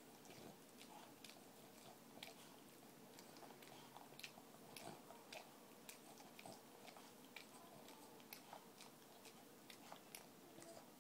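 Faint, irregular wet clicks and smacks, a few each second, of a Boston terrier's tongue and mouth licking in and around another dog's mouth.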